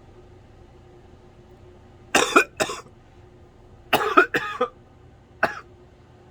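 A woman coughing in three short fits: two coughs about two seconds in, a run of three near four seconds, and one short cough near the end. It is the bad cough of someone who is sick.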